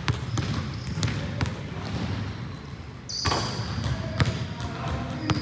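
Basketballs bouncing on a hard gym floor as players dribble: sharp, irregular thuds a few per second over a steady low rumble.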